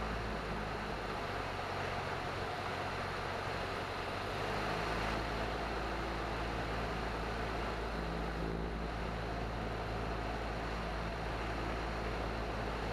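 Cessna 172N's four-cylinder Lycoming engine and propeller running steadily in flight, with a constant rush of wind noise over the airframe.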